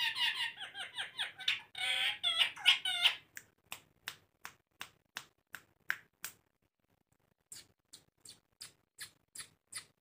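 Rose-ringed parakeets chattering in a fast run of short, pitched calls for about three seconds. Then a series of sharp clicks, about three a second, with a one-second pause past the middle.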